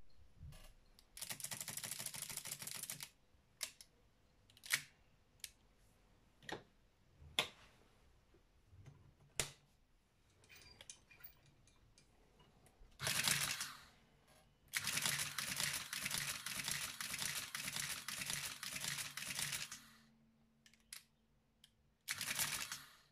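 Olympia mechanical adding machine with its case off: single sharp key clicks, and several runs of fast, even rattling as the mechanism cycles, each lasting one to five seconds. One key press near the end sets off a short run.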